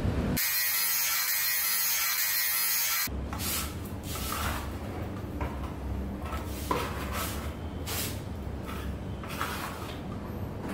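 A steady hiss for the first few seconds, then a putty knife scraping wall filler out of a tub and spreading it across the wall, in a string of short scraping strokes.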